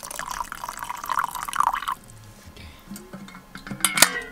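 Hot water poured from a stainless steel kettle into a metal mug for about two seconds, filling it. A single sharp click about four seconds in.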